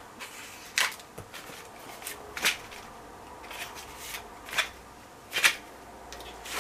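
Cardboard and plastic packaging being handled and pulled open: irregular crinkling rustles, seven or eight of them, the loudest about five and a half seconds in.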